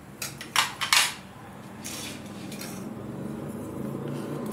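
A few sharp clinks of utensils against a metal kadhai in the first second. Then a steel ladle stirs and scrapes through thick creamy gravy, a steady low rustle that slowly grows louder.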